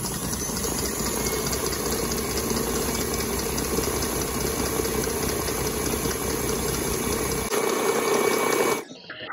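Electric stand mixer running steadily on high speed, its wire whisk beating thick marshmallow mixture of egg white and hot sugar syrup in a steel bowl. The sound cuts off abruptly near the end.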